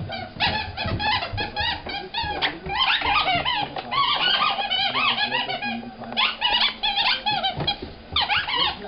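Rubber squeaky toy squeaking rapidly and over and over as a Vizsla puppy chews it, with brief breaks about six and eight seconds in.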